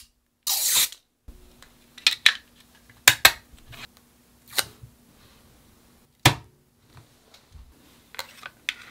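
Sharp plastic clicks and taps as a clear plastic phone case and an acrylic phone grip are handled and pressed together, with a short rustle about half a second in.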